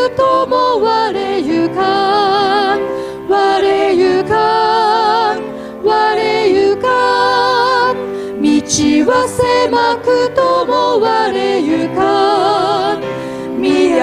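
Three women singing a Japanese hymn, holding long notes with a wide vibrato, accompanied by grand piano.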